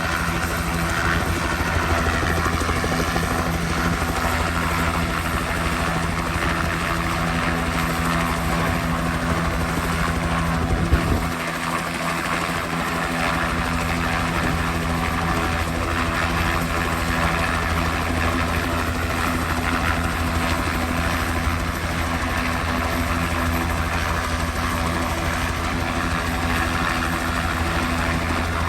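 An engine running steadily, a constant droning hum that does not change pitch, with one brief knock about eleven seconds in.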